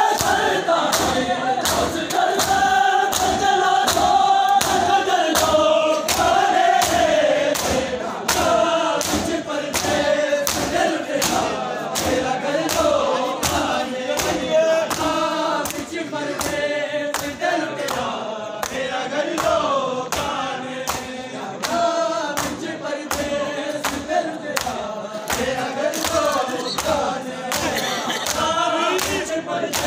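Crowd of bare-chested men doing matam, slapping their chests in unison about one and a half times a second, while chanting a lament together in a steady rhythm.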